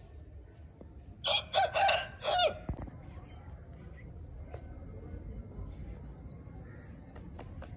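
A rooster crows once, about a second in. The call is a cock-a-doodle-doo in several pitched syllables, lasting about a second and a half.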